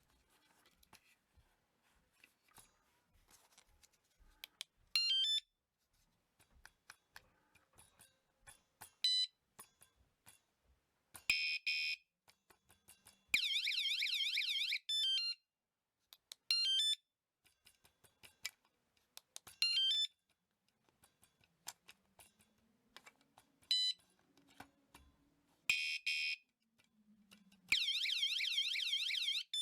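Motorbike/bicycle anti-theft alarm siren sounding in short bursts. There are several brief chirps stepping down in pitch, and a few louder blasts of fast warbling siren; the longest blasts last about one and a half to two seconds, one in the middle and one near the end. Light clicks are heard in between.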